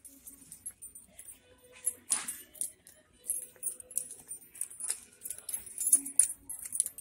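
Small metal items jingling and clicking on and off as the person carrying the camera walks, with a louder rustle about two seconds in.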